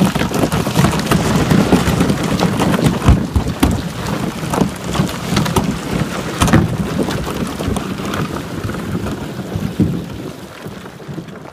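Small chunks of brash ice knocking and scraping against the hulls of a sail-rigged kayak trimaran as it pushes through, a dense run of knocks over a low rumble. It thins out and grows quieter in the last few seconds.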